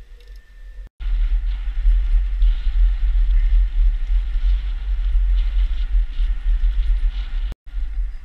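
Heavy wind buffeting on the microphone with road noise while riding an electric scooter, a loud steady low rumble. The sound drops out completely twice for a split second, about a second in and near the end.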